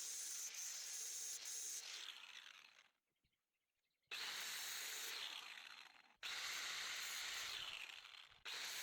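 Power grinder grinding metal on a lawnmower, in bursts that start abruptly and tail off, with about a second of quiet three seconds in and short breaks about six and eight seconds in.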